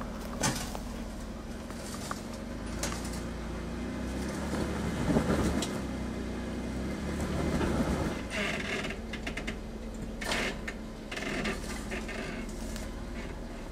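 Jeep Wrangler JK's engine running slowly at low revs as it crawls over rock ledges, with a few sharp knocks and stretches of scraping as it works over the rocks.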